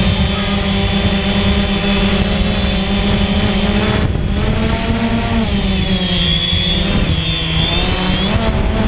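DJI Phantom quadcopter's electric motors and propellers buzzing in flight, heard up close from the camera it carries. The pitch dips a little past the middle and rises again near the end.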